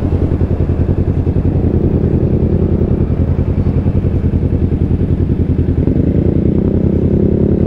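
Motorcycle engine running at low, steady revs while the bike rolls along, its exhaust pulsing evenly and rapidly.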